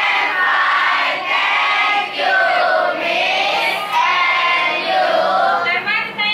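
A roomful of children singing together in unison, many voices holding and sliding between notes.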